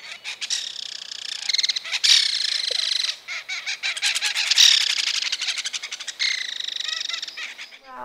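Belted kingfisher giving its rattling call: rapid dry clicking notes in several long runs, with short breaks between them.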